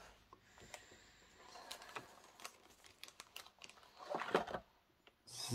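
Clear plastic packaging of a model railway coach being handled: faint crinkling, small clicks and scrapes, with a louder spell of rustling about four seconds in.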